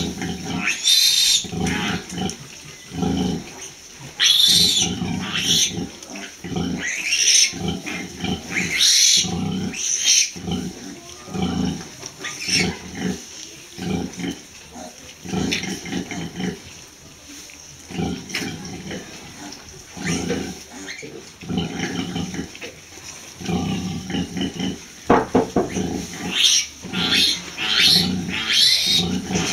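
Nursing sow grunting in a steady rhythm, about once a second, while her newborn piglets suckle, with short high piglet squeals now and then and a flurry of them near the end. Rhythmic grunting like this is a sow's nursing call at milk let-down.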